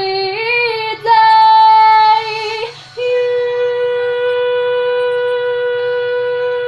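A woman singing a slow, sad ballad: she sings the word 'day' across a few held notes, breaks briefly, then holds one long steady high note from about three seconds in.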